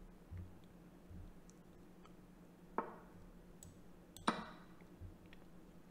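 Two Chess.com piece-move sounds, sharp clicks with a short ring, about a second and a half apart, with a few faint mouse clicks between them.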